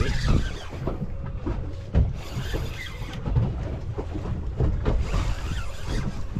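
Wind buffeting the microphone in an uneven low rumble, over choppy sea water moving against a small boat's hull.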